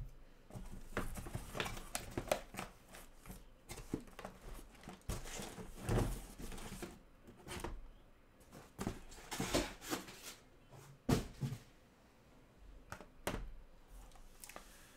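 Cardboard shipping case being opened and shrink-wrapped Topps Tier One hobby boxes slid out and stacked: irregular cardboard scraping and rustling, with boxes knocking against each other. Two sharp knocks stand out about eleven and thirteen seconds in.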